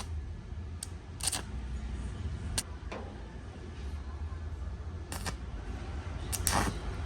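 A series of sharp clicks and knocks, about six scattered over several seconds, over a low steady rumble; the loudest come near the end.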